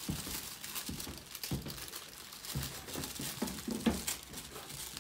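Tissue paper rustling and crinkling under hands as its sealed wrapping inside a cardboard box is worked open, with a few soft knocks.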